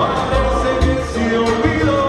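Salsa band playing live: singers over a moving bass line and steady percussion.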